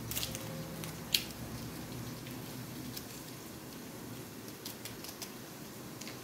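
Foil wrapper of a stock cube crinkling and crackling as it is opened and crumbled over a pot of boiling water, in scattered sharp clicks, the loudest about a second in, over a faint steady bubbling.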